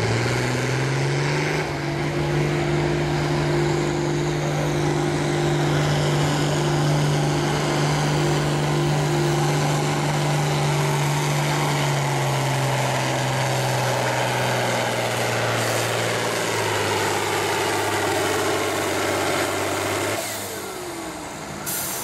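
John Deere farm tractor's diesel engine running flat out under load as it drags a weight-transfer sled, a steady drone that slowly sinks in pitch past the halfway point as the sled bogs it down. Near the end the engine drops off as the pull ends.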